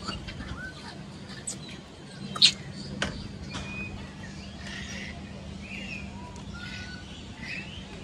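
Birds calling in a walk-through aviary: scattered short chirps and whistled notes at several pitches. A sharp click comes about two and a half seconds in, over a steady low hum.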